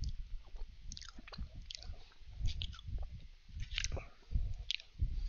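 A person chewing Danish butter cookies close to a headset microphone: irregular crisp crackles with soft low thuds of the jaw.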